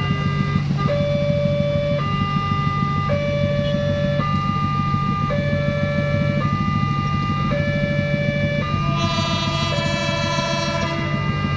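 Railway level-crossing warning alarm sounding as a train approaches: an electronic two-tone signal switching between its two tones about once a second, over the low hum of idling motorbike engines. Near the end a long, richer horn blast from the approaching train joins for about two seconds.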